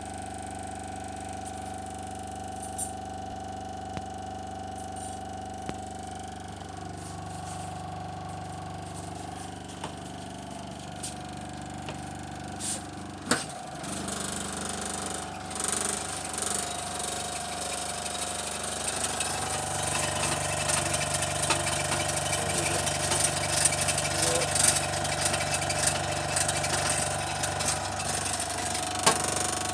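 Old Soviet Dnepr refrigerator's compressor running with a steady mechanical hum. Scattered clicks and knocks come over it, and it grows louder and busier in the last third.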